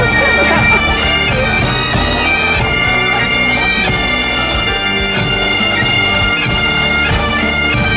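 Great Highland bagpipes of a marching pipe band playing a tune over their steady drones.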